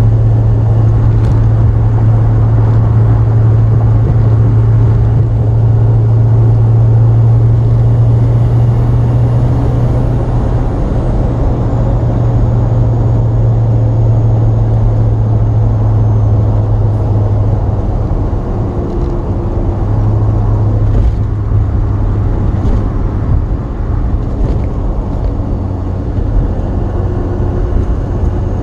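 Cab interior of a Chevy crew cab dually with a Duramax diesel at highway speed: a steady low drone of engine, drivetrain and tyres that eases a little past the midpoint. The freshly rebuilt AAM 11.5-inch rear axle runs noise-free, with no gear whine.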